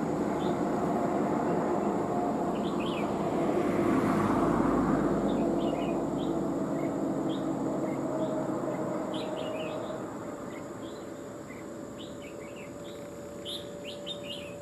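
A motor vehicle's engine drones, swelling about four seconds in and fading away after about ten seconds. Under it, short high bird chirps repeat throughout and grow plainer as the engine fades: calls of red-whiskered bulbuls.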